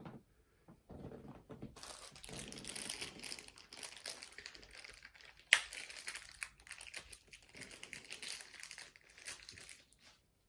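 Plastic packaging crinkling and rustling as it is handled by hand, most likely while a turntable part is being unwrapped. There is one sharp knock about five and a half seconds in.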